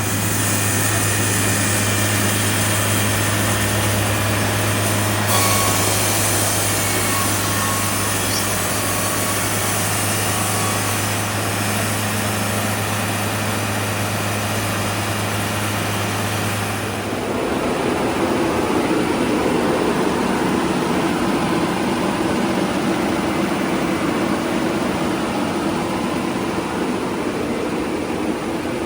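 Sawmill machinery running loud and steady with a low hum; about two-thirds of the way through the hum drops out and the machine noise changes to a higher steady tone.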